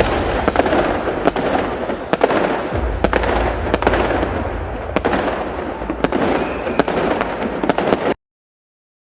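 Layered magic-fight sound effects: a dense crackling, fireworks-like noise over a low rumble, with sharp cracks every so often. It cuts off suddenly about 8 seconds in, leaving silence.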